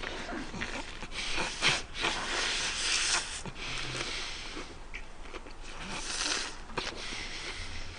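Close-miked chewing of an overstuffed lettuce-leaf wrap of beef bulgogi: wet crunching and smacking of leafy greens, with irregular breaths through the nose.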